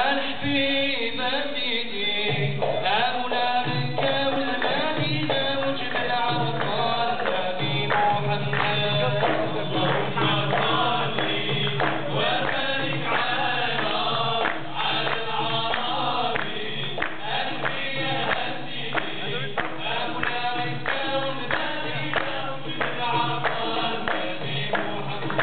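A group of men singing together, accompanied by a steady beat on hand-held frame drums.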